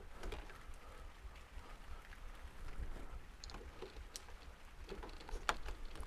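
Faint scattered clicks and light taps as the parts of a smart door knob are handled and fitted to the door, with the sharpest tap about five and a half seconds in.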